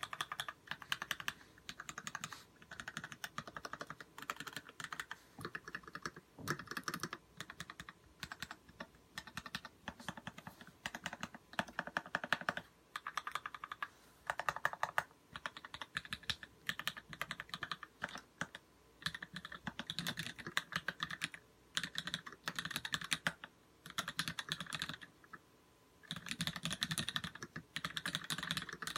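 Typing on a custom mechanical keyboard with Krytox-lubed vintage Cherry MX Black linear switches on 60 g long springs and GMK doubleshot keycaps: quick runs of keystrokes in bursts of a second or two, separated by short pauses.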